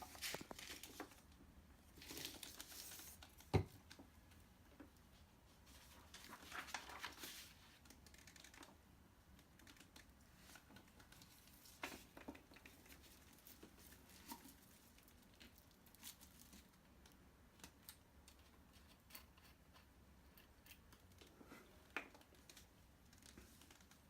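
Paper rustling and crinkling in short bursts as sheets are handled and spread out, with a sharp knock about three and a half seconds in. Faint scattered clicks and handling noises follow.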